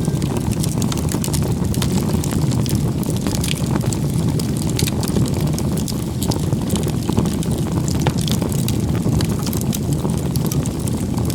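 Campfire burning, with irregular crackles and pops over a steady low rumble.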